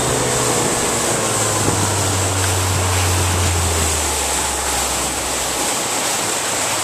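Steady rush of wind and water past a bay boat's hull under way, with the low drone of its Suzuki 115 hp four-stroke outboard easing off and fading out about six seconds in as the boat is slowed.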